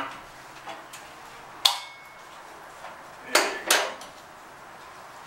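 Sharp metallic clinks from work on a water heater's metal plumbing fittings: one about a second and a half in, then two close together around three and a half seconds in, over a faint steady hiss.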